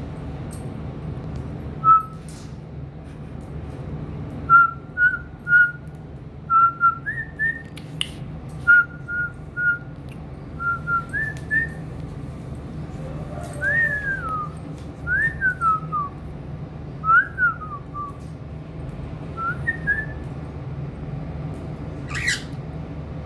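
Cockatiel whistling a string of short notes, the early ones held level and the later ones sliding downward, with a couple of sharp clicks between them.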